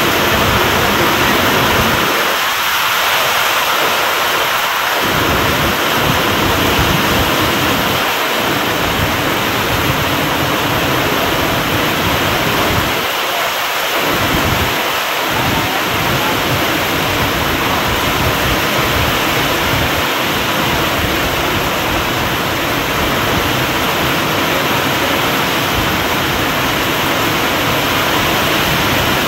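Heavy rain pouring steadily, drumming on a metal sheet roof overhead and streaming off its edge, with a low rumble underneath that briefly drops away twice.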